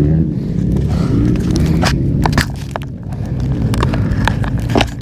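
Dirt bike engines running, their pitch drifting up and down, with several sharp clicks and scrapes close to the microphone.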